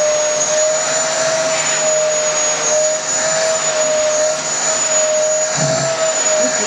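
Bagless cyclone upright vacuum cleaner running steadily, a high motor whine over a rushing hiss. Its hose nozzle is pressed into a St. Bernard's coat to suck out shedding hair.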